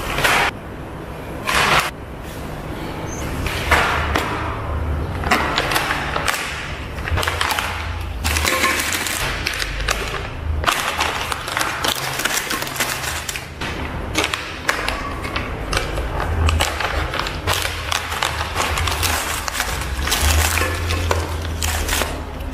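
Individually wrapped sesame and peanut sweet bars poured out of plastic pouches onto a plate: the plastic wrappers crinkle and clatter as they tumble out, and the pouches rustle.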